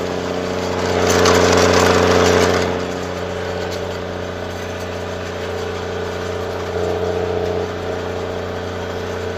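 Snowcat grooming machine's engine running steadily, heard from the cab, with a louder rushing swell for a couple of seconds near the start.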